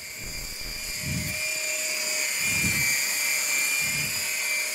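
Heated food processor's motor whirring steadily at medium speed, blending egg yolks and butter into an emulsified sauce in the warmed bowl, with a soft low throb about every second and a half.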